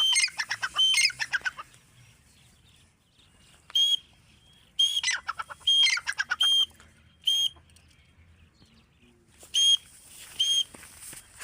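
Grey francolin calling: three bouts of loud, repeated high-pitched notes, separated by quiet gaps of two to three seconds.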